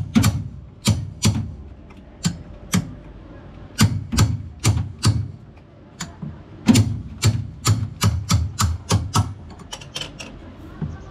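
Repeated sharp knocks, like tool blows on a machine part, coming in runs at about two a second with a short pause midway and thinning out near the end.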